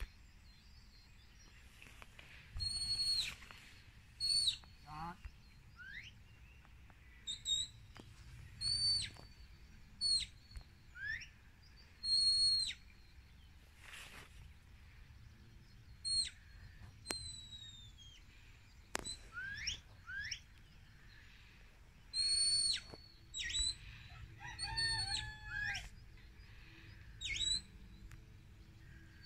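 A handler's whistle commands to a working sheepdog. There is a long string of short, sharp, high whistles with pauses between them. Most are held level and drop off at the end, while a few slide upward.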